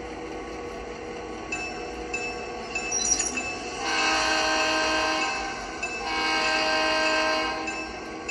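An HO-scale model diesel locomotive's sound-decoder horn blows two long blasts, about four seconds in and again about six seconds in. Under it, the locomotive's bell rings steadily and its engine sound hums.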